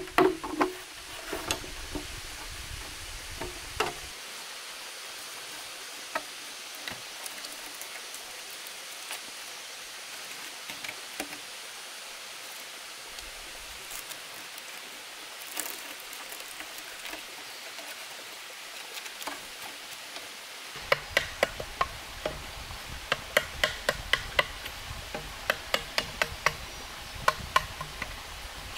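Steady rush of a waterfall. Over the last several seconds it is broken by a run of sharp knocks of green bamboo being worked, about one or two a second.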